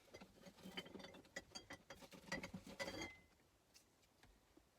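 A quick run of small clicks, taps and light rattles from objects being handled, some with a short bright ring, lasting about three seconds and then dying away to a few faint ticks.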